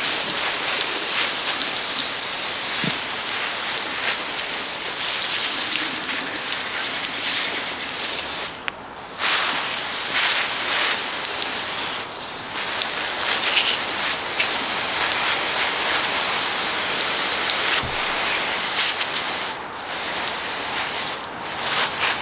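Steady hissing, rain-like noise from the bicycle being cleaned, with a short break about nine seconds in.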